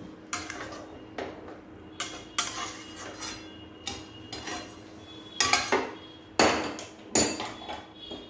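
A spatula scraping and clanking against a metal kadai as curry gravy is stirred. There is a run of sharp knocks, loudest a little past the middle.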